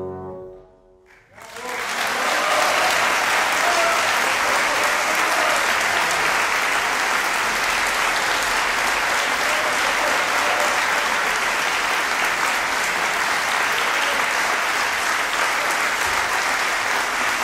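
The last held chord of clarinet, bassoon and piano ends within the first second. After a brief quiet an audience starts applauding, and the applause carries on steadily.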